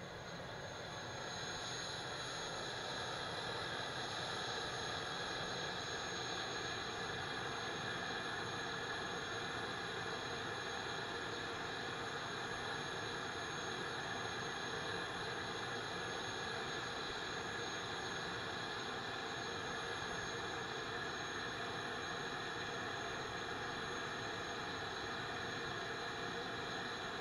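Gas-turbine power unit of a 2K12 Kub (SA-6 Gainful) missile launcher, which drives its 30 kW generator, running with a steady high whine and hiss. It grows louder over the first couple of seconds, then holds steady.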